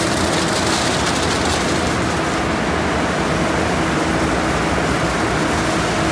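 Tunnel car wash equipment running: spinning cloth wraparound brushes scrubbing a car amid water spray, a dense steady wash noise over a faint steady motor hum.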